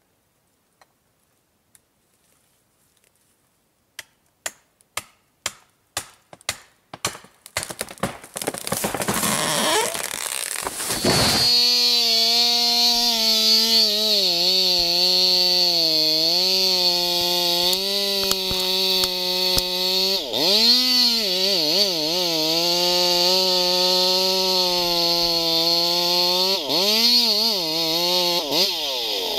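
A run of sharp clicks coming faster and faster, then a chainsaw running hard at high revs, with the hiss of the chain cutting. Its pitch dips and recovers several times as the saw bogs under load in the cut.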